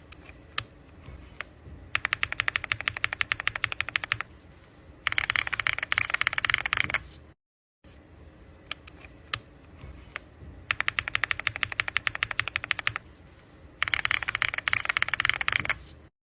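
Mechanical keyboard with Gateron Milky Yellow Pro linear switches being typed on: a few single keystrokes, then two rapid runs of clacks, the second louder. After a brief cut just past the middle, the same sequence plays again.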